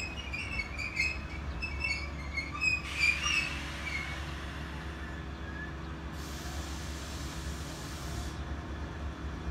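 JR West 105 series electric train pulling slowly into the platform, with a steady low running rumble. Short high squeaks sound over the first few seconds, and a hiss of air lasts about two seconds past the middle.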